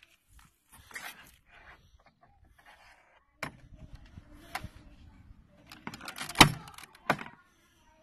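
Sharp plastic clicks and knocks as the plastic trim holders of a Mercedes-Benz W211 door panel are prised out with a screwdriver. A low steady noise runs under them from near the middle, ending at the loudest click, with one more click just after.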